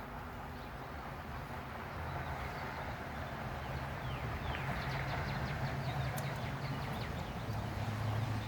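A steady low engine hum, growing slowly louder, with birds chirping in quick, short, falling notes through the middle.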